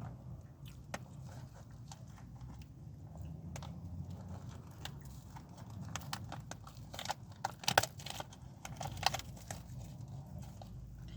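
Close-miked eating: chewing and biting with many small crisp crunches and clicks, and a louder flurry of crunches about seven to nine seconds in.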